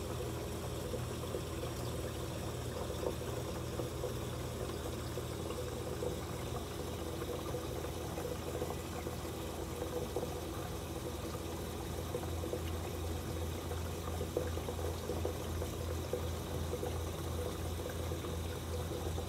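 Aquarium water circulation: a steady low pump hum under continuously trickling, pouring water. The low hum starts to pulse about two-thirds of the way through.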